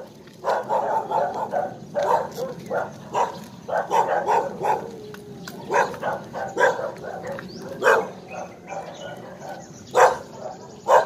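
A dog barking again and again in short, uneven runs, with a few sharper, louder barks in the last few seconds.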